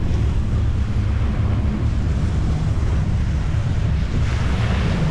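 Wind buffeting the microphone as a steady low rumble over the hiss of surf on a sandy beach, the surf hiss swelling briefly near the end as a wave washes in.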